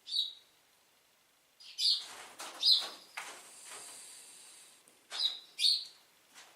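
An animal's snore-like calls: short raspy hisses, each with a sharp chirp at its peak. One comes right at the start, a quick cluster follows about two seconds in, then a longer, softer hiss, and two more calls about five seconds in.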